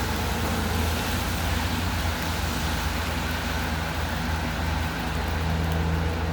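Steady hiss of light-to-moderate rain over a low, steady vehicle engine hum.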